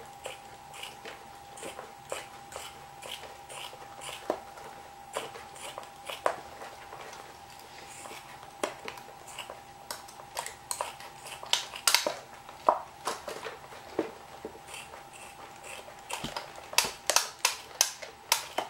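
Scissors snipping through a thick, dense rubber bellows boot: a run of irregular crunching snips that come faster and louder toward the end.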